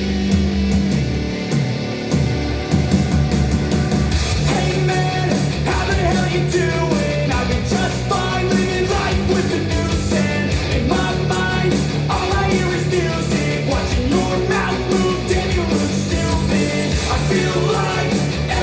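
Rock music with electric guitar and singing, played as a sound test through Elac Debut 5.2 bookshelf speakers and a Yamaha NS-SW100 subwoofer. The music thickens about four seconds in, as the full band comes in over the guitar.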